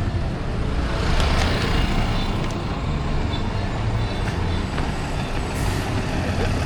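Road traffic: a motor vehicle's engine running close by with steady traffic rumble, swelling briefly about a second in.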